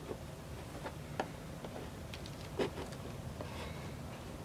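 Flathead screwdriver prying at a plastic retaining tab on a BMW E92 headlight housing: a few scattered small clicks and ticks of metal on plastic over a low steady background hum.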